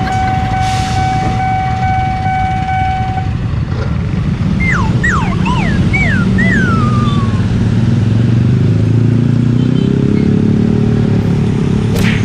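Motorcycles and cars pulling away across a railway level crossing, their engine noise swelling about eight seconds in. A steady tone cuts off about three seconds in, and a few short falling whistles sound in the middle.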